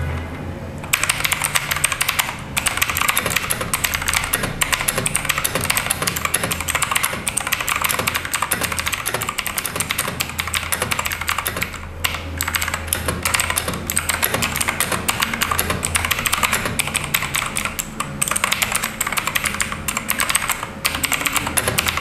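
Kananic JD104 RGB mechanical keyboard with blue switches and PBT keycaps being typed on fast and continuously close to the microphone: a dense run of loud, sharp, clear keystroke clicks that starts about a second in, with a few brief pauses.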